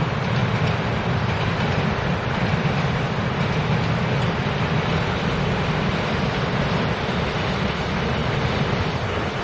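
Taiwan Railways electric multiple unit commuter train running past on the elevated line: a steady rumble of wheels on rail.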